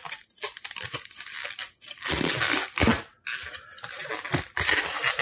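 Plastic wrapping crinkling and rustling as a camera lens is unwrapped and pulled from its bag, in irregular bursts with a short pause about three seconds in.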